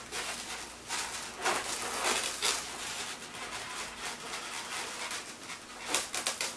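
Latex twisting balloons squeaking and rubbing as they are handled and drawn on with a marker, in irregular scratchy strokes, loudest near the end.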